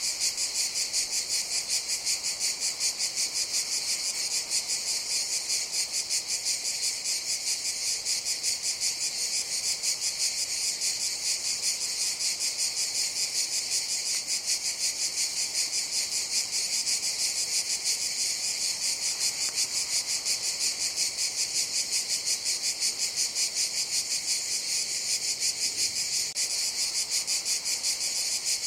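Cicadas calling continuously: a steady, high-pitched buzzing chorus with a fast, even pulse.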